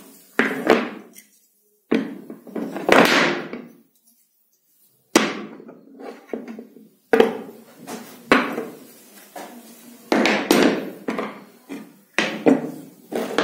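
3D-printed plastic parts knocking and clattering as they are picked up, turned over and set down on a worktop: about eight separate knocks and clatters, a second or two apart.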